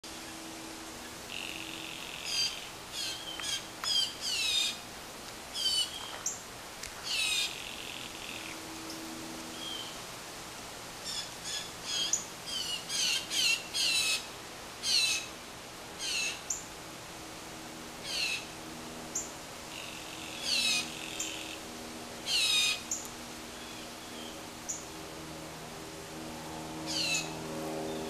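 A group of blue jays calling again and again, with short harsh calls that each fall in pitch, plus a couple of longer steady buzzes. This is a loose imitation of cicada song, which the uploader takes for jays luring cicadas to eat them.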